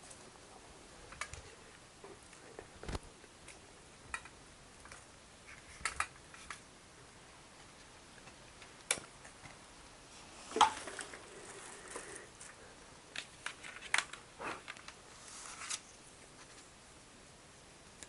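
Scattered small clicks, taps and rustles of handling, irregular and faint, with a few sharper clicks about nine, ten and fourteen seconds in.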